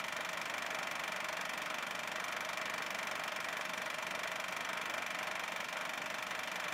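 Film projector running during the transfer of a silent 8 mm home movie: a steady mechanical running noise with a thin high whine on top.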